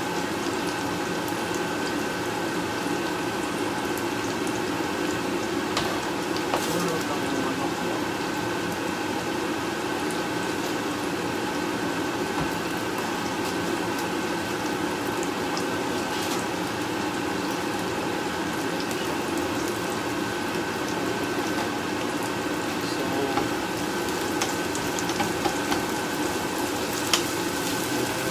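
Sliced onions and garlic sizzling steadily in an oiled frying pan over a constant hum. There are a few light clicks of a knife and utensils, more of them near the end.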